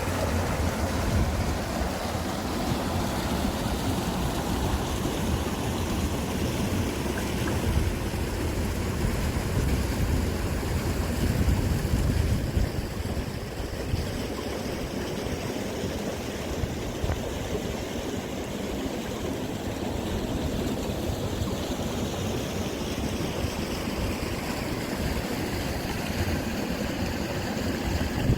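Mountain stream water running steadily through a partly frozen valley, with wind rumbling on the microphone.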